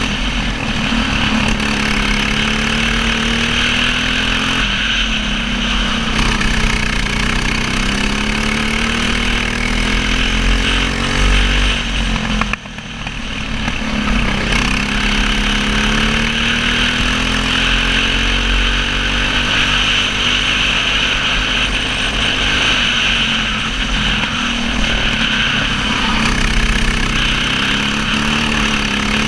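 Racing kart engine at race pace, heard from on board. Its pitch climbs steadily as it pulls down the straights and drops each time the driver lifts off for a corner. The sharpest lift comes about halfway through.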